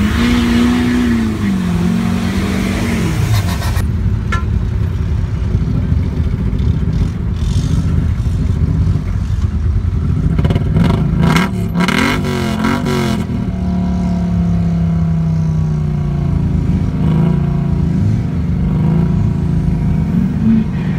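A pickup truck's engine revving hard, rising and falling, as it spins its tyres through mud in the first few seconds; then, after a sudden change, vehicle engines running, with a spell of clattering about halfway and a steadier engine tone that slowly falls in pitch near the end.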